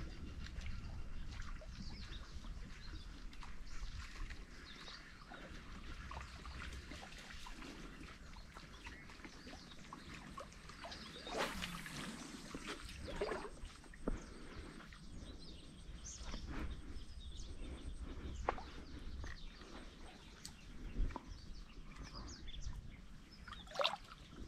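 Faint outdoor ambience at a reservoir shore: wind rumbling on the microphone for the first few seconds, faint bird chirps, and scattered small clicks and rustles. A few brief louder sweeping sounds stand out near the middle and again near the end.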